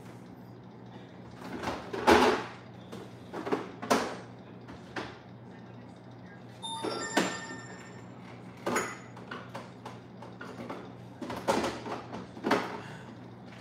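Ingredients being put back into a refrigerator: a string of knocks, rustles and door thuds, the loudest about two seconds in, with glass bottles clinking about seven seconds in. A steady low hum runs underneath.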